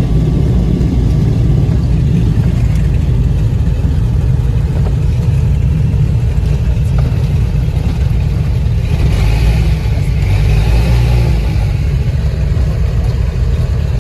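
The Cessna 402's twin piston engines, heard from inside the cabin, running at low power while the plane taxies after landing: a steady loud drone. A brighter hiss joins in about nine seconds in and fades a few seconds later.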